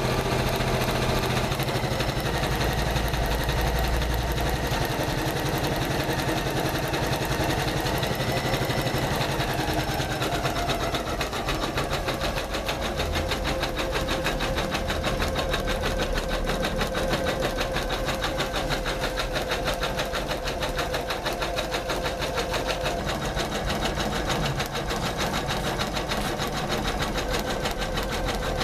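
Janome MC500E computerized embroidery machine stitching steadily, a fast even run of needle strokes. Its motor tone slides lower about ten seconds in.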